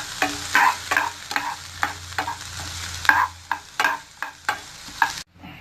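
Chopped onions sizzling as they brown in hot oil in a pan, stirred with repeated scraping strokes of a utensil against the pan. The sound drops out abruptly for a moment near the end.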